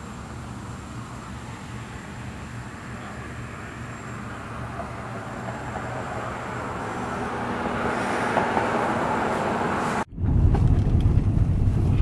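Steady outdoor noise beside a road that grows gradually louder over several seconds. After an abrupt cut about ten seconds in, the low, steady rumble of a car driving, heard from inside the cabin.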